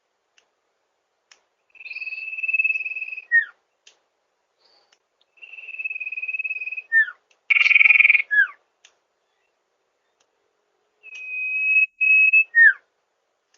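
Sirtu bird calling: four times, a long steady high whistle of about a second and a half ends in a short, quick downward-sliding note. The third call has a harsher, rougher note just before its drop.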